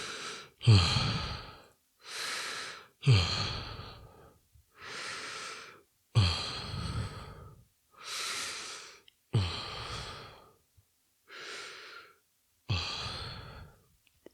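A man breathing heavily, out of breath after a set of exercise reps: about five slow cycles of a deep inhale followed by a loud exhale, each exhale starting strong and tailing off.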